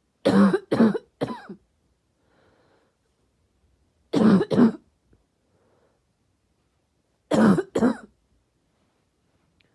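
A person's harsh, barky cough in three bouts: three coughs, then two, then two, with faint breaths between the bouts.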